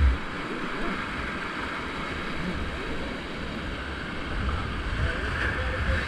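Whitewater rapids of a creek running in high water, rushing steadily around a river tube, with low rumbling buffeting on the microphone.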